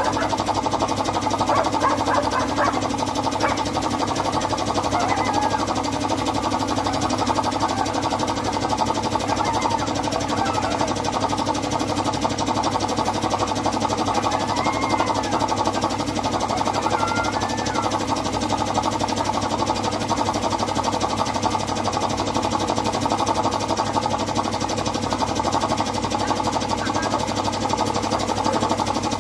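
Air compressor running steadily, powering a gravity-feed spray gun whose hiss of air and paint carries on throughout as a steel cabinet is sprayed.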